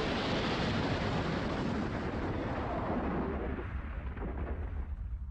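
The rumbling roar after an airliner's high-speed crash into swamp water, dying away gradually, its hiss fading first and leaving a low rumble.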